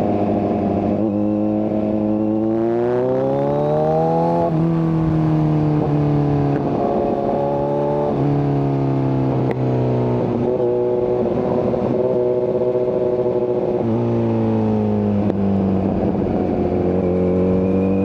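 Kawasaki Z900's inline-four engine through an SC Project exhaust with the catalytic converter removed, under way. It climbs in pitch for a couple of seconds and drops sharply, runs fairly steady, dips later on, then climbs again near the end.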